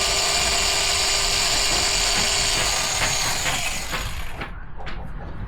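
Angle grinder running unloaded with a steady high whine, switched off about three seconds in and winding down over the next second.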